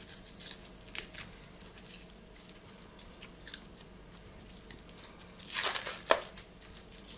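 Clear plastic wrapping being crinkled and pulled off a metal dart by hand. A few light crackles, then a louder burst of rustling and tearing about five and a half seconds in.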